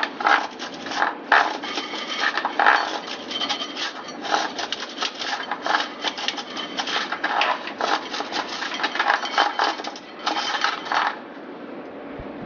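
Ceramic insulating beads strung on a heating element wire, clicking and rattling against one another as the beaded element is lifted and handled. The clatter stops near the end.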